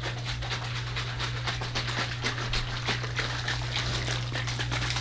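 Plastic sports water bottle being shaken to mix in a powdered drink mix: quick, irregular rattling clicks that grow busier about two seconds in, over a steady low hum.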